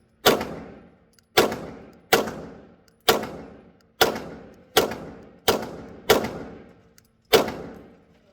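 Glock pistol firing nine shots in a steady string, roughly one shot every three-quarters of a second, each crack followed by a short fading echo.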